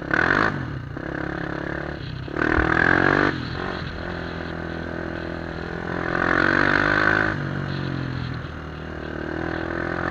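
2003 Honda 400EX ATV's single-cylinder four-stroke engine with a White Bros aftermarket exhaust, under way and revving up and down. It has three louder throttle surges: at the very start, about two and a half seconds in, and around six seconds in.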